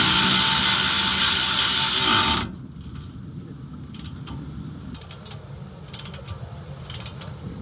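A power ratchet spins a suspension bolt for about two and a half seconds with a steady whir, then stops. Short bursts of ratchet clicking follow, roughly once a second, as the bolt is snugged down by hand.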